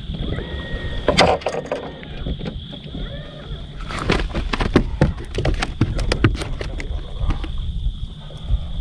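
Irregular knocks and clicks on a bass boat's deck as a freshly caught bass is handled in the boat, over a steady low rumble.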